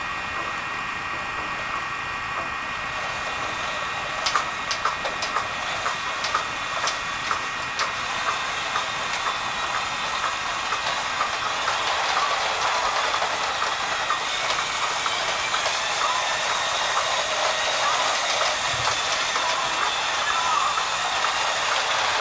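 LEGO Emerald Night steam locomotive running around a plastic track oval, powered by a Power Functions XL motor: a steady motor whine and hiss of wheels on the plastic rails, gradually getting louder. Sharp clicks come in the first half as the wheels pass over track joints.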